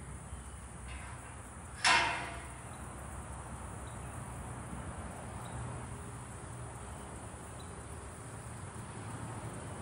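A single sharp metallic clang from the steel pipe arena gate about two seconds in, ringing briefly, over a steady low background hum.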